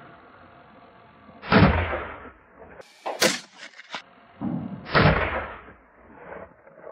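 Gunshots at a wild boar: two heavy shots about a second and a half and five seconds in, each trailing off with an echo, and a sharper, shorter crack between them.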